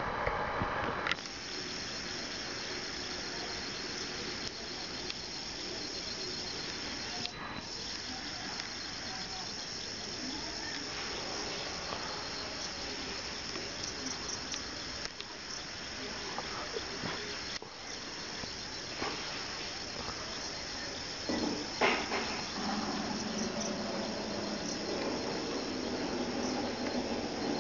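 Crickets chirping in a steady high trill over a faint hiss, briefly breaking off twice. From about 21 seconds in, a lower sound with several steady tones joins in.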